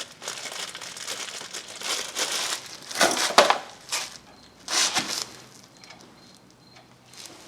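Packaging crinkling and rustling as the parts bag is rummaged through for the grease (Zerk) fitting, with two louder crunches about three and five seconds in, then quieter handling.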